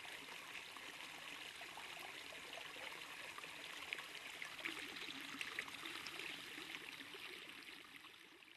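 Faint flowing water, a steady rushing with small trickling ticks, fading out near the end.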